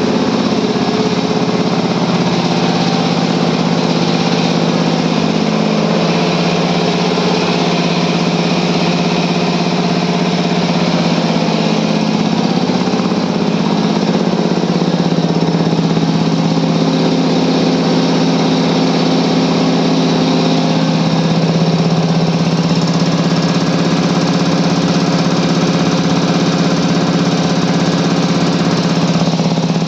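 Medical air compressors running steadily: a loud, even machine drone with a constant hiss above it.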